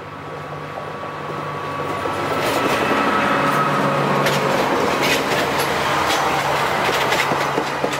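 Budd Rail Diesel Car passing close by: its diesel engine runs steadily and gets louder as the car approaches. Sharp clicks of its wheels over the rail joints are heard in the second half as it goes past.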